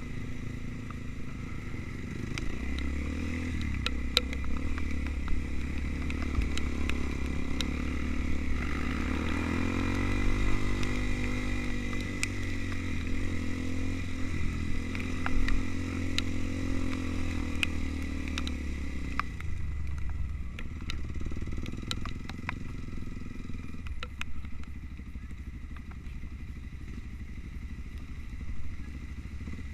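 Trail motorcycle engine running under way, its pitch rising and falling with the throttle, strongest about a third of the way in, then settling lower and quieter in the last third. Scattered sharp clicks and knocks sound over it.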